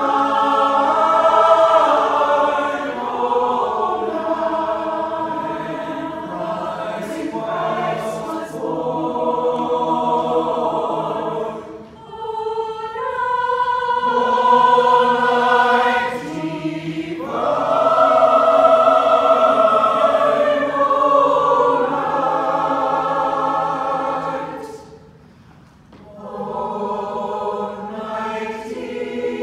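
Mixed choir of men's and women's voices singing a song together in harmony, with sustained chords and brief breaks between phrases about halfway through and near the end.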